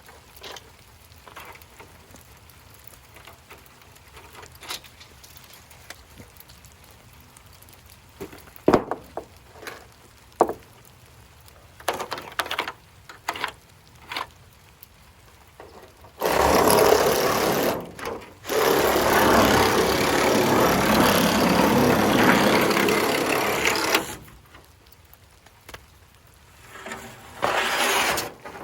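Wood construction work: scattered knocks and clicks from handling lumber, then a loud power tool running for about eight seconds with a short break about two seconds in, and a few more knocks near the end.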